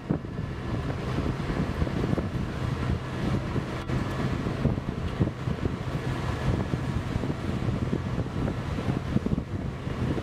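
The UHAC tracked amphibious connector's engine running with a steady low hum as the vehicle moves slowly on its tracks, with wind buffeting the microphone.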